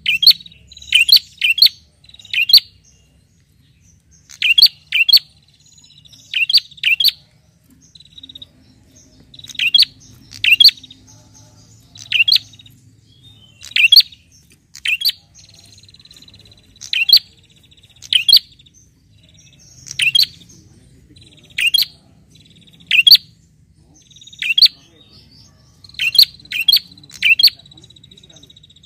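A caged prenjak (a rufous-headed tailorbird) calling persistently to challenge a rival. The calls are short, sharp and high, often in quick doubles or triples, and come about every second or two.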